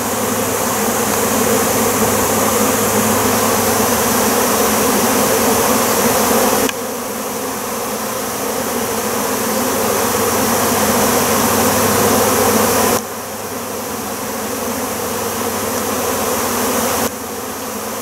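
Loud, steady buzzing of a large cloud of honey bees flying around and crowding onto a colander of wax to feed. The level drops suddenly about a third of the way in, again about two-thirds in, and once more near the end.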